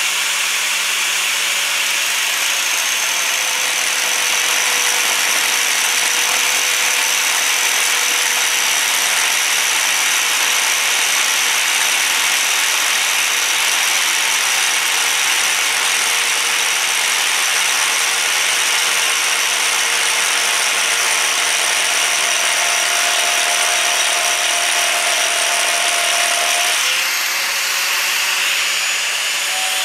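Electric angle grinder with a cutting disc running continuously as it grinds a slot lengthwise through a wooden board, a steady motor whine under the rasp of the disc in the wood. Near the end the sound changes as the disc comes out of the finished slot.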